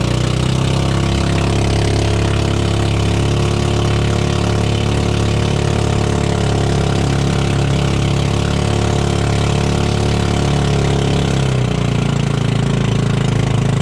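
Small boat engine running steadily, driving a wooden outrigger canoe through the water, with the hiss of the wake. Near the end the engine note drops slightly as it eases off.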